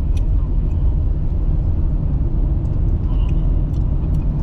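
A car driving along, its engine and tyre noise making a steady low rumble.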